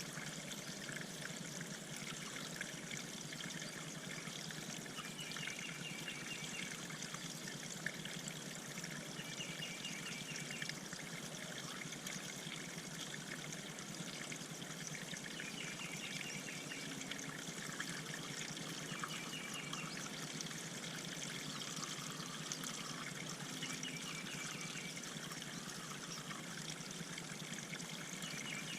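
Water trickling and pouring steadily into a backyard bird pond. A songbird sings a short, rapid trill in the background every few seconds.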